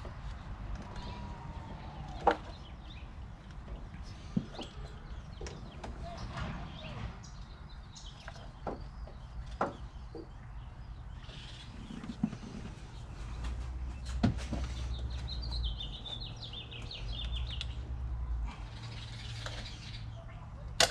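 Hands working the fuel injectors out of the Ford Fiesta ST engine: scattered sharp clicks and knocks of metal parts, with a short run of quick high squeaks about fifteen seconds in.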